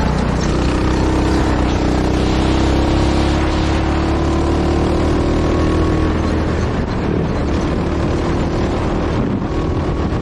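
Go-kart engine running hard at speed on track. Its note climbs a little about half a second in, holds steady, and eases slightly near the end.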